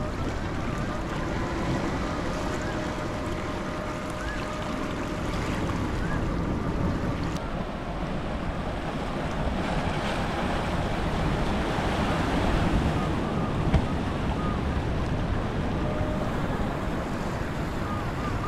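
Sea surf washing steadily, with wind buffeting the microphone; the wash swells a little about two-thirds of the way in.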